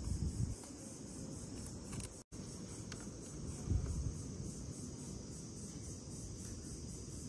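Steady high-pitched buzz of insects, over a low rumble of handling noise, with a brief dropout a little over two seconds in.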